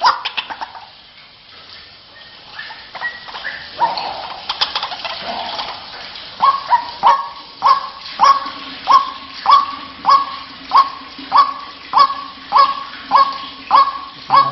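White-breasted waterhen (ruak-ruak) calling: a few irregular notes at first, then from about halfway a steady run of short, sharp notes repeated evenly, nearly two a second. This is the rhythmic call used as a lure for the species.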